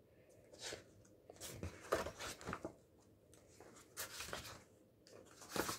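Paper and card of a picture book being handled as its cover is opened and the first page lifted: a few soft, short rustles and scrapes.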